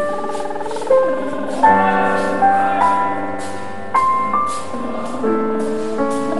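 Piano played slowly: sustained chords with a simple melody on top, a new note or chord struck about once a second.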